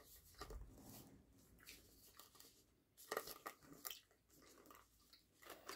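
Near silence: a few faint, short clicks and rustles from people chewing fruit pastilles and handling the sweets' packaging, about half a second in and again around three seconds in.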